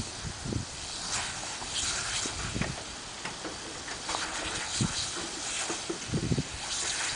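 Lawn sprinkler spraying with a steady hiss, broken by short irregular splashes and snaps as two dogs bite at the water jet.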